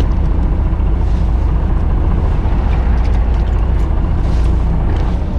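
Fishing boat's engine idling: a steady low rumble, with a few faint ticks over it.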